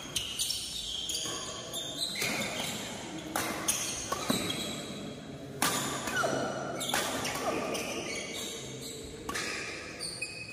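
Badminton rally: a string of sharp racket-on-shuttlecock hits, echoing in a large hall, with short squeaks of court shoes on the floor in the middle of the rally.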